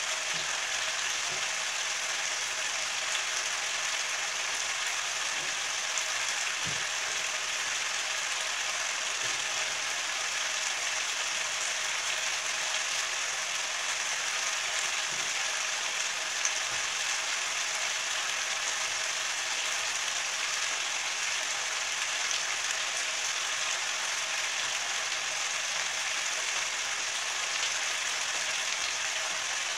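Chicken curry frying in ghee in an open pan, with a steady crackling sizzle and bubbling as the masala is reduced.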